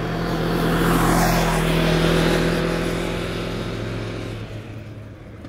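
Moto Morini 6½'s 650cc parallel-twin engine running at a steady low speed while riding, heard from on the bike. A rush of wind and road noise swells over it about a second in, then fades away.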